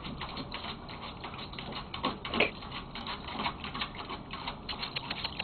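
A Papillon's paws digging fast at the plastic bottom of a shallow wading pool, scratching and splashing in about an inch of water: a quick, uneven run of several scrapes a second, one louder about two and a half seconds in.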